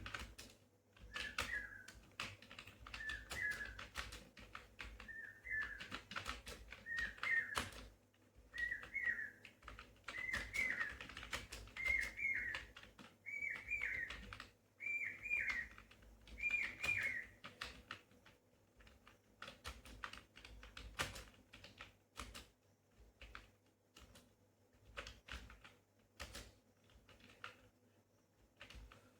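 Computer keyboard typing at a steady pace, keys clicking irregularly throughout. Over the first half, a bird's short whistled call repeats about a dozen times, each call a little higher in pitch and louder than the last, then stops.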